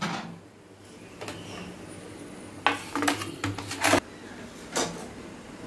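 Kitchen clatter of cookware and utensils: a knock at the start, a quick run of clinks and knocks from about two and a half to four seconds in that stops abruptly, and one more knock near five seconds.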